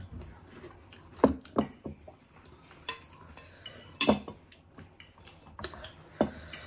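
Metal fork and spoon clinking against plates while eating, with about six short, sharp clinks at irregular intervals.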